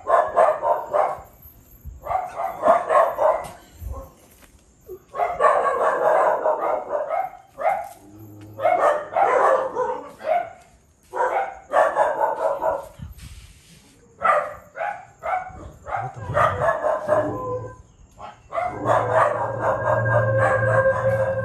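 Dog barking in repeated bursts of a second or two, with short pauses between them.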